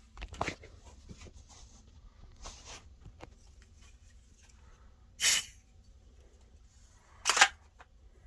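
Smoke Sabre aerosol smoke-detector tester sprayed in short hissing bursts, two loud ones about two seconds apart in the second half, to set off a smoke detector. Before them, a brief knock of handling early on.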